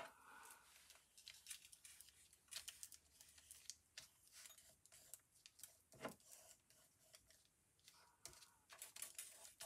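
Near silence with faint scattered ticks and rustles of card and paper being handled, a few slightly louder clicks among them.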